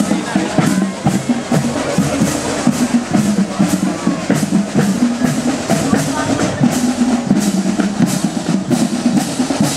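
Marching band drumline playing a street cadence: snare and bass drums beating a steady marching rhythm.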